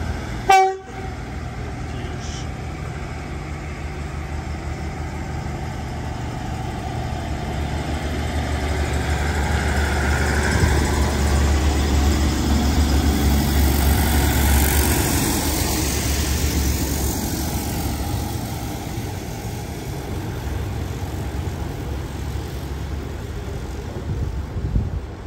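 Diesel train engine running with a low rumble that builds to its loudest about halfway through and then fades. About half a second in there is a brief, loud pitched blast.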